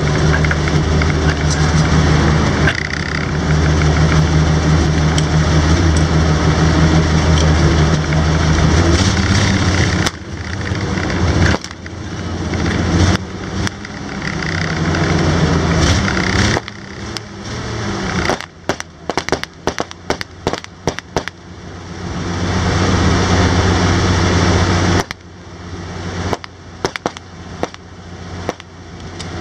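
Studebaker M29C Weasel's six-cylinder flathead engine running while the tracked carrier moves at low speed, the throttle easing off and picking up again several times. Midway the engine note drops back and a run of irregular sharp crackling clicks takes over for several seconds.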